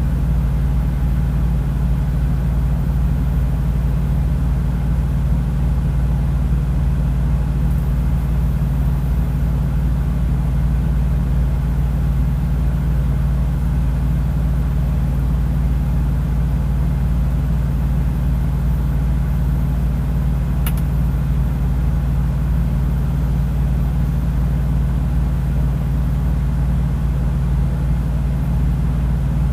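Semi truck's diesel engine idling, a steady low rumble that does not change, with one brief click about twenty seconds in.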